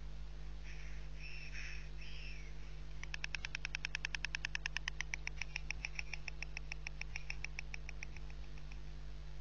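White stork bill-clattering: a rapid train of wooden-sounding clacks, about ten a second, starting about three seconds in, then slowing and fading out over some five seconds. A few short bird calls come just before it, over a steady electrical hum.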